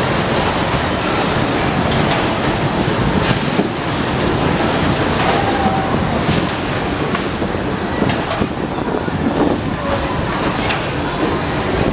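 Zipper carnival ride running, moving its caged cars round past the loading platform: a steady mechanical rumble and rattle with repeated clanks.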